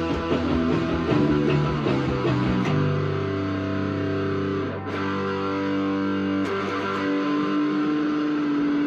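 Guitar playing: quick picked and strummed notes at first, then about three seconds in, chords held and left ringing for long stretches.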